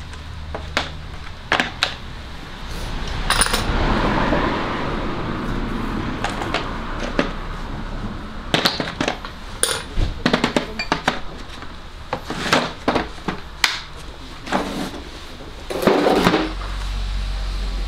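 Metal tools and parts clinking and knocking as they are handled, in irregular scattered strikes, with a louder rustling swell about four seconds in and again near the end.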